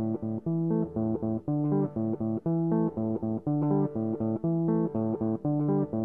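Instrumental song intro: a guitar picking a repeating rhythmic pattern of plucked notes over a bass line.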